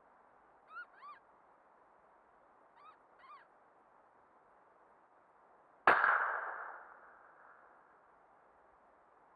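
A single rifle shot about six seconds in, loud and sudden, its echo dying away over about two seconds. Before it, two pairs of short high calls.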